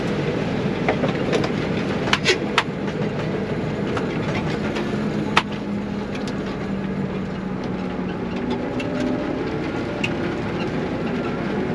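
Combine harvester running, heard from inside its cab: a steady mechanical drone with a low tone that drifts, and a few sharp knocks about two and five seconds in.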